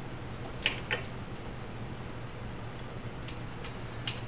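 A few sharp clicks from a socket ratchet as the thermostat housing bolts on a Jeep 4.0-litre inline six are snugged down by hand, with a steady low hum underneath.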